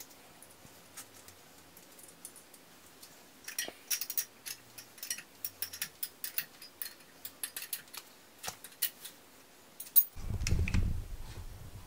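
Open-end wrench clicking and tapping on a pair of nuts jammed together on an exhaust-manifold stud as the stud is unscrewed from its stripped aluminium bolt hole: a run of light, irregular metallic clicks. Near the end a louder, low rumble of handling noise.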